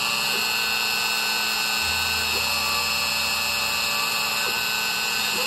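Small CNC machine's router spindle running steadily with a high whine as its bit carves a shallow pattern in wood. Under it the axis motors give tones that glide up and down and hold level as the carriage moves, with a low hum added between about two and four seconds in.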